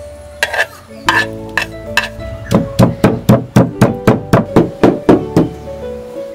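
Wooden pestle pounding grated coconut in a wooden mortar: a few scattered knocks, then, from about halfway in, a quick even run of about four knocks a second, over background music.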